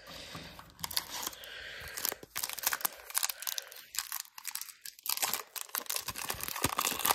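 Upper Deck hockey card pack's wrapper torn open and crinkled by hand: a rustling tear, then a dense run of sharp crackles.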